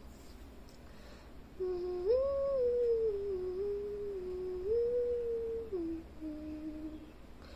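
A person humming a slow tune, holding notes that step up and down in pitch, beginning about a second and a half in.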